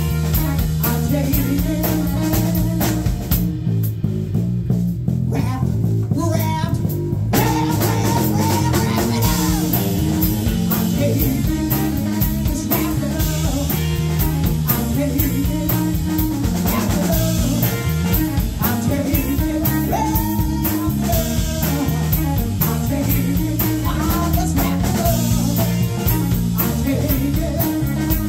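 A live rock-blues band playing, with electric guitars over a drum kit. The cymbals and drums drop out for a few seconds near the start and come back in about seven seconds in.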